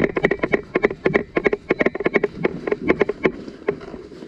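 Rapid, irregular clattering knocks, several a second, from a helmet-mounted camera rattling as the wearer moves. The uploader calls it an "awful noise" from the helmet camera.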